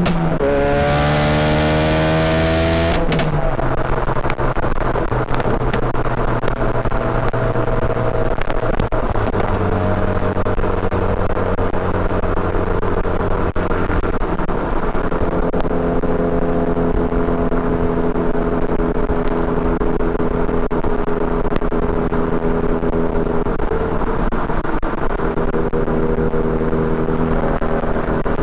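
2017 Ford Focus RS turbocharged four-cylinder through a Borla turbo-back exhaust, rising in pitch under acceleration for about three seconds. Then a sharp crack as the revs drop, and a steady exhaust note at low cruising revs, with small changes in pitch.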